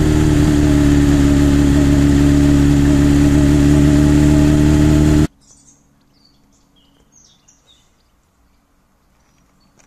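Motorcycle engine running at a steady pace with wind rushing over the microphone. It cuts off sharply about five seconds in, leaving a quiet stretch with birds chirping.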